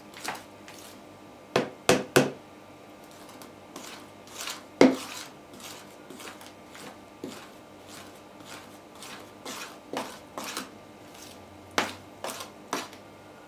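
A spoon stirring thick cake batter in a plastic jug, knocking against the sides in irregular clinks and taps, a dozen or so in all.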